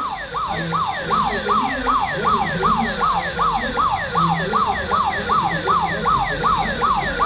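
Electronic siren sounding a fast, steady yelp: one tone sweeping up and back down about three times a second, without a break.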